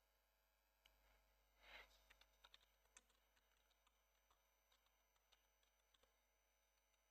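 Faint computer keyboard typing: a string of light, irregular key clicks, with one brief soft rush of noise just before two seconds in.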